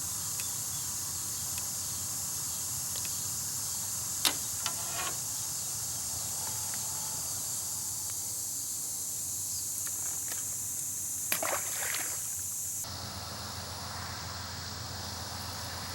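Steady high-pitched chorus of insects, which drops off suddenly about thirteen seconds in, with two brief sharper sounds about four and eleven seconds in.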